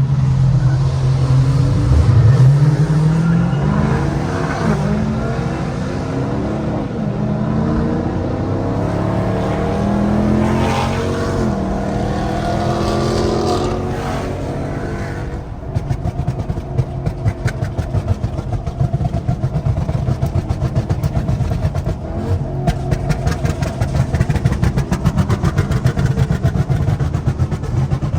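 Dodge Charger 392's 6.4-litre HEMI V8 revving and accelerating, its pitch climbing and dropping through the gears. About halfway through it settles into a steady, rapid, crackling run of exhaust pulses.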